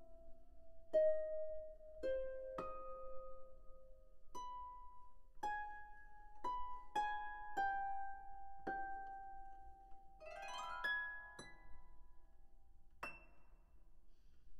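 Slow, quiet instrumental music: a melody of single notes, each starting sharply and left to ring, with a quick rippling run of notes a little past halfway.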